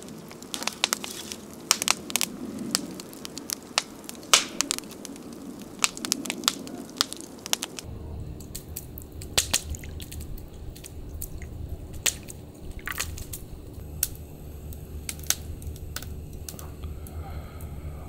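Wood fire crackling, with sharp irregular pops. About eight seconds in, a low steady rumble comes in under the crackle.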